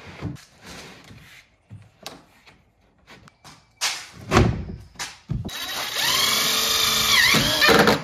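Scattered wooden knocks, then two louder thuds about four seconds in. From about five and a half seconds a cordless drill runs steadily while driving a screw into the wooden frame, its pitch dipping and rising briefly near the end.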